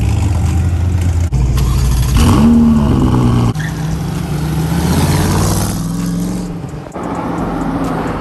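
Sports car engines accelerating and revving in short clips cut together, each cut changing the sound abruptly: a Ferrari F40's V8 pulling away, an early Chevrolet Corvette's V8 revving up in a rising pitch, and a Ford GT's V8 driving off.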